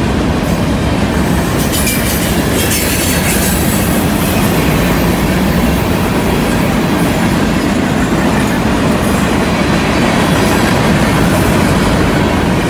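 Freight cars of a passing freight train rolling by on a curve: a steady rumble of steel wheels on the rails with clickety-clack over the rail joints, and at times a high squeal from the wheels on the curve.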